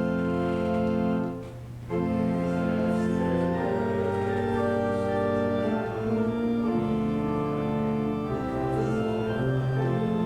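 Church organ playing a hymn tune in slow, sustained chords, with a brief break between phrases about a second and a half in.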